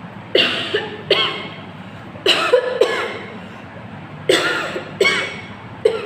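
A woman coughing in bursts, about seven coughs, mostly in pairs. Her throat and nose are irritated by dried-chilli powder that she breathed in.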